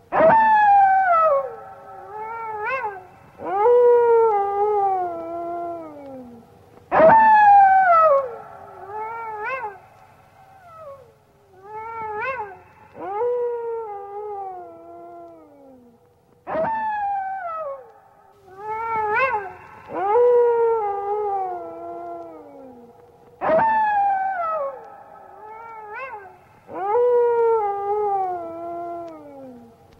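A cartoon robot wolf howling: a run of loud howls, each starting high and gliding down in pitch, some rising first, with the same pattern repeating about every seven seconds.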